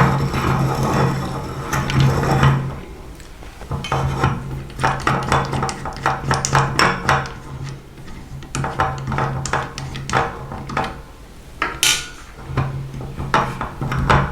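Electric meat grinder running with a steady motor hum while its auger crunches and clatters through hard, dry food. The motor stops twice for about a second, near three seconds in and again near eleven seconds in, then starts again.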